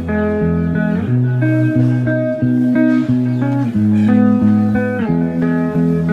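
Background music led by a plucked guitar, playing a steady melody of held notes.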